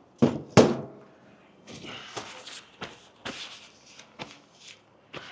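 Two sharp metal knocks, then a run of lighter clicks and rustles as brake pad hardware clips are handled and fitted on a disc brake caliper bracket.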